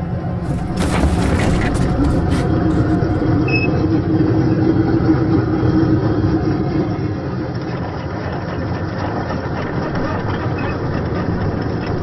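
Henron 1/16 scale RC Leopard 2 A6 tank driving over gravel: a steady engine-like running noise, with a few sharp clicks in the first couple of seconds.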